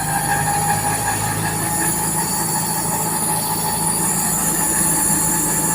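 Daikin VRV3 outdoor unit running steadily in emergency mode: the fixed-speed standard compressor and the condenser fan hum with a few held tones. The inverter compressor and inverter PCB are out of service after an E5 fault.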